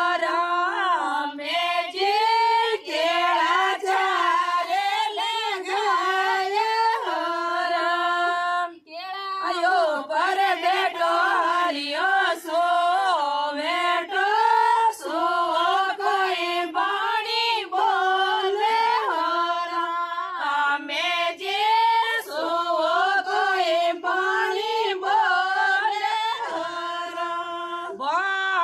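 Women singing a Rajasthani devotional folk song (a Krishna bhajan) unaccompanied, with a short breath break about nine seconds in.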